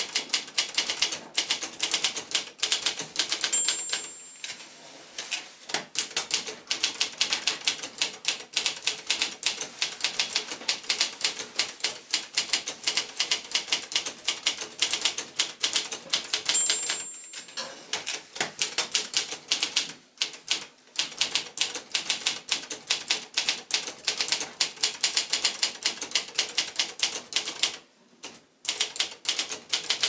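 1982 Brother Accord 10 (JP7) portable manual typewriter being typed on steadily, a fast run of key strikes clacking. A short high ding sounds twice, about three and a half and sixteen and a half seconds in, each followed by a brief pause in the typing.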